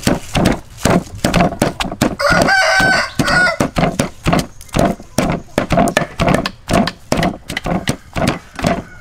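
Wooden pestle pounding in a mortar, a steady beat of thuds about two or three a second, first in a wooden mortar of leaves and then in a stone mortar of chopped lemongrass. A rooster crows once over the pounding, about two seconds in.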